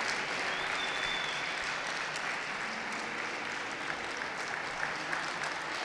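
Ringside audience applauding steadily.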